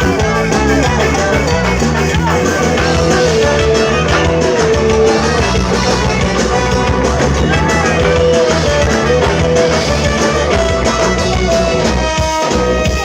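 Ska band playing live at full volume, with a steady beat and bass under melodic lines in the middle range.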